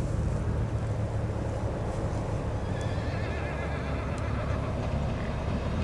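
D1 diesel multiple unit approaching, its diesel engine giving a steady low rumble. About three seconds in, a faint wavering high whine joins it.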